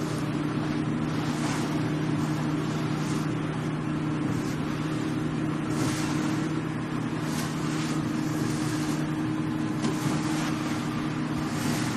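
A motorboat's engines running steadily while underway, a constant low drone with a hiss of wind and water that swells briefly every second or two.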